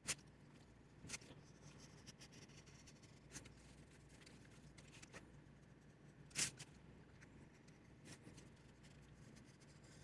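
Craft knife cutting through a paper pattern on a cutting mat: faint scratchy strokes with a few sharp ticks, the loudest about six seconds in.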